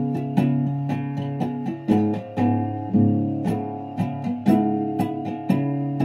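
Acoustic guitar playing an instrumental passage, a chord struck about twice a second and left ringing.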